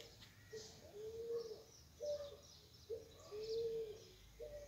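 A dove cooing in repeated three-note phrases: a short note, a long drawn-out one, then a short higher one, about every two seconds. Small birds chirp faintly behind it.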